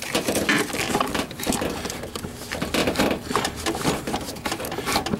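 Irregular clicks, knocks and rustling of hands pulling at plastic fuel lines and their connectors in an engine bay, close to the microphone.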